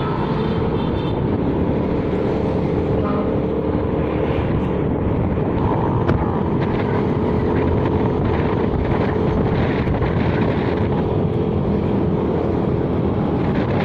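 A vehicle's engine and road noise, steady and unbroken while travelling, with wind rumbling on the microphone.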